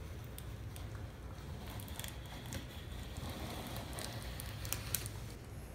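Plastic squeegee worked along the edge of self-adhesive architectural vinyl film on a cabinet side, giving faint, scattered ticks and crackles over a low steady hum.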